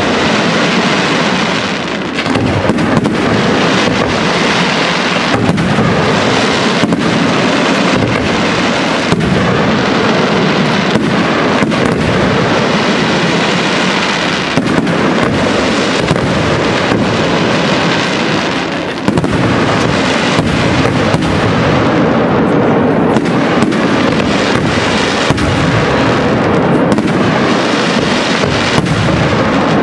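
Professional fireworks display: aerial shells bursting in quick succession, a dense, unbroken barrage of bangs and crackle, with a short lull and then a sharp bang about two-thirds of the way through.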